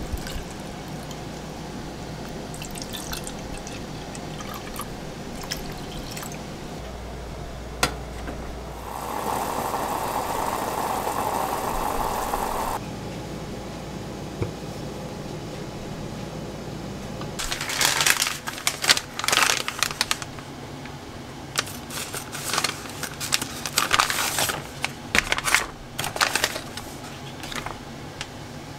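Kitchen sounds: liquid poured into a pot, a steady watery hiss for about four seconds in the middle, then plastic food packets crinkling and rustling through the second half.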